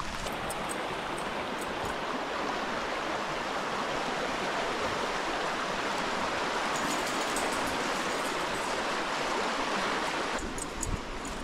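Shallow, rocky forest stream rushing over stones in a steady, even rush of water, a little quieter near the end.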